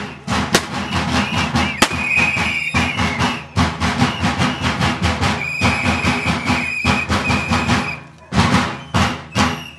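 Fast folk drumming with a shrill whistle played over it in long held notes. The drumming breaks off briefly near the end, then resumes.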